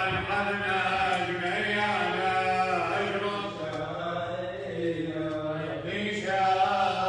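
Liturgical chanting of a hymn in a church wedding service: a sung voice in long wavering phrases over a steady low drone.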